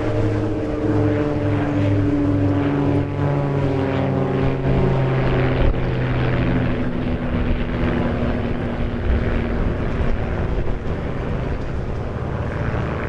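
Propeller-driven piston engines of three aerobatic biplanes (Pitts S1 Special, Ultimate 10-300, Christen Eagle II) flying in close formation with smoke on. The steady drone slowly drops in pitch over the first seven or eight seconds as the formation passes, then blurs into a rougher rumble.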